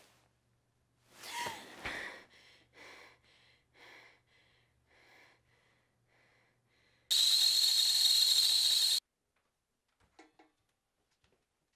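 A woman gasps awake, then pants in short breaths, about two a second, growing fainter. Then comes a loud, steady hiss for about two seconds that starts and stops abruptly.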